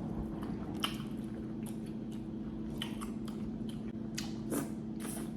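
Mouth sounds of eating a seafood boil: chewing and smacking with scattered short clicks of food being handled, over a steady background hum.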